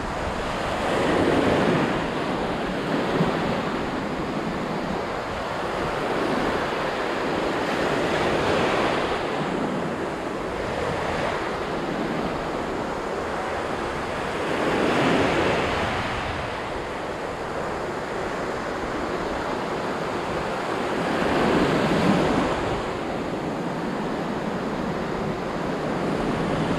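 Ocean surf breaking and washing up a sandy beach, swelling louder about every seven seconds as each wave comes in, with wind on the microphone.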